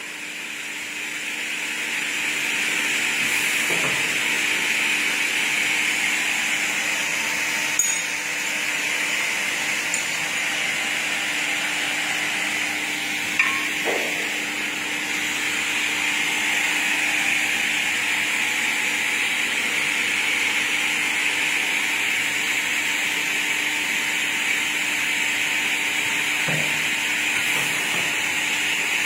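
Double-head aluminium cutting saw running with a steady whirring hiss of its spinning blades and a faint steady hum. Two short sharp clicks come through, one about a quarter of the way in and one near the middle.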